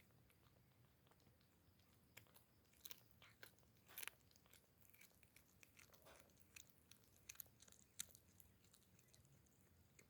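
A domestic cat chewing a rat and crunching through its bones: faint, irregular crunches and clicks.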